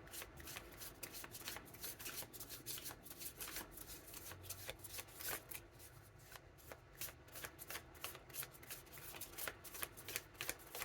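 Tarot cards being shuffled by hand: a soft, continuous run of quick card clicks and riffles.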